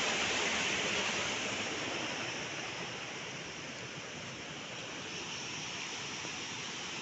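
A rocky mountain stream rushing over stones, a steady noise that eases off slightly.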